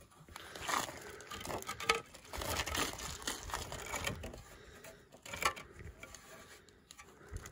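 Clay roof tile slid and shifted by hand over a wooden batten and rough concrete, with irregular scraping and clacks.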